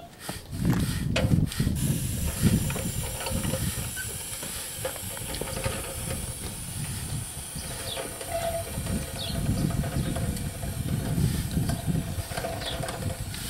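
Aerosol can of Rust-Oleum striping paint spraying through a push-along striping machine: a few clicks, then a steady hiss starting about two seconds in, over a low, uneven rumble.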